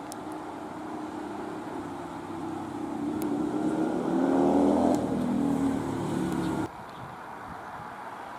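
A motor vehicle passing close by: its engine note grows louder and drops in pitch as it goes past, then cuts off abruptly about two-thirds of the way in.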